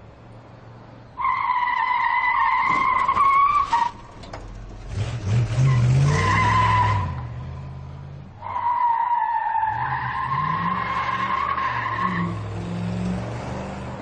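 Muscle car tyres squealing in two long skids, the first starting suddenly about a second in and the second about eight seconds in. The engine revs up and down between them and runs under the second skid as it fades.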